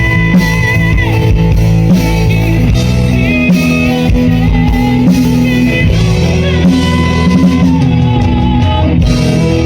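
A rock band playing loudly and steadily: electric guitar with bending notes over bass and drums.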